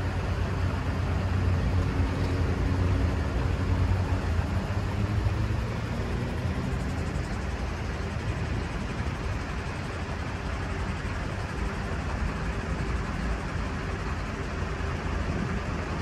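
Street traffic: a steady low engine rumble from passing vehicles, louder for the first five seconds or so and then easing off a little.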